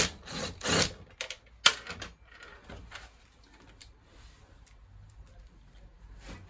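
Clatter of tumble dryer parts being handled during a belt repair: a quick run of sharp knocks and clicks in the first two seconds, then faint scattered clicks.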